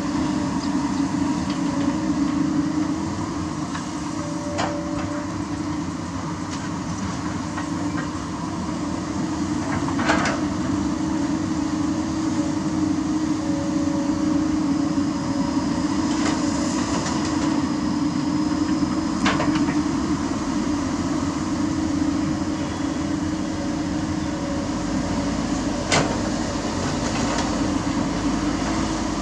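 Diesel engines of a Komatsu PC200 excavator and a Mitsubishi Fuso Canter dump truck running steadily while the truck is loaded with dirt. A few sharp knocks stand out over the engine drone, about a third of the way in, twice in the middle, and again near the end.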